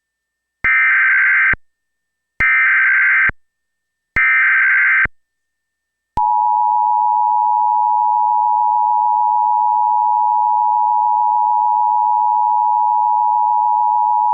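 Emergency Alert System tones for a Child Abduction Emergency (AMBER Alert): three short, evenly spaced bursts of SAME digital header data, then, about six seconds in, the steady two-tone EAS attention signal begins and holds. The header bursts encode the alert, and the attention tone signals that an emergency message follows.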